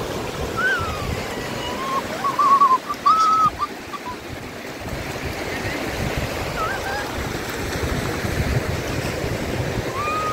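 Shallow sea surf washing up and back over the sand in a steady hiss. A few short high-pitched cries cut through about two to three seconds in, the loudest moments.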